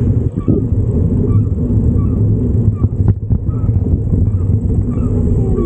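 Steady low rumble of wind and rolling noise on the microphone of a moving bicycle, with faint short high chirps recurring about once a second.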